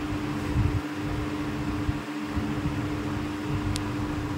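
Steady mechanical hum like a running fan, with an uneven low rumble beneath it and a faint short high tick near the end.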